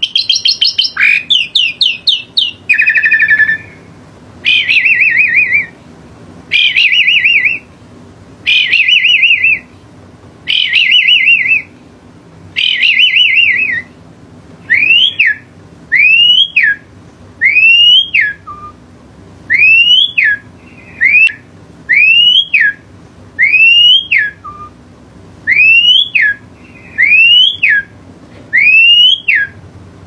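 Caged pied myna singing loudly in repeated phrases. It opens with quick sweeping notes, then gives a series of wavering, trilled phrases about every two seconds. From about halfway on it switches to short whistles that rise and then drop off, roughly one a second, with an alarm-like insistence.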